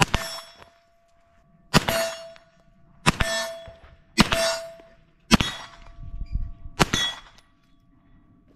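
Smith & Wesson FPC 9mm carbine firing six single shots, about one to one and a half seconds apart. Each shot is followed by a ringing clang, as of a hit steel target.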